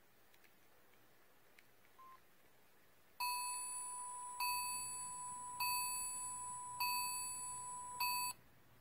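Samsung SGH-E105 mobile phone's low-battery warning: a steady electronic beep tone, restarted five times about every 1.2 seconds, then cutting off. A faint short beep comes about two seconds in.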